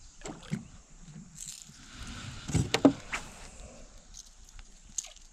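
Knocks and clatter of handling in a small fishing boat: a few knocks near the start, a quick cluster of loud knocks about halfway through, and a single knock near the end.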